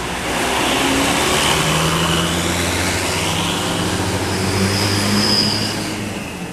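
Heavy vehicle, a large diesel bus, driving past close by: its engine and tyre noise swell about half a second in and die away near the end.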